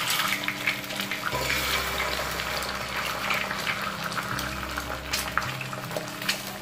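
Eggs frying in hot oil in a stainless steel pan: a steady sizzle dotted with small crackles and spatters.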